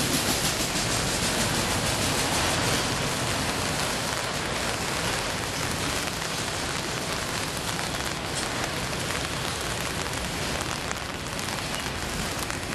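Freight train of autorack cars rolling past: a steady, even rush of steel wheels on rail and rattling cars, easing slightly toward the end.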